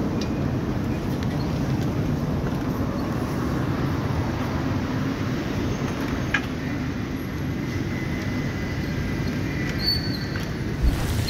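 Steady low rumble of outdoor street background noise, with a faint click about six seconds in.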